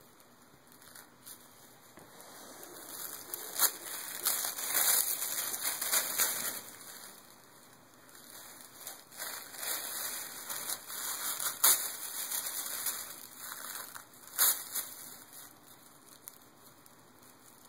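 Tissue paper crinkling and rustling as a baby grabs and crumples it with her hands. It comes in two longer spells, with a few sharp crackles, and is quiet near the start and end.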